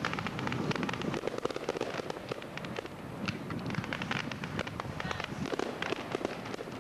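Fireworks crackling overhead: a dense, continuous run of small sharp cracks and pops, many a second, with no single big bang standing out.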